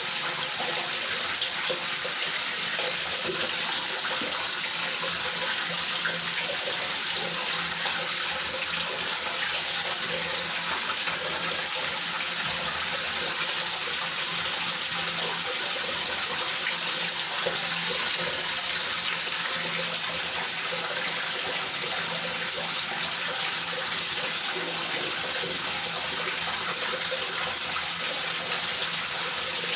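Steady rain falling: an even, unbroken hiss of water with no thunder.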